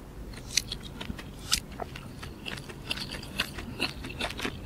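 A person chewing mouthfuls of baked mussel, close to the microphone: a scattering of small, irregular mouth clicks and smacks.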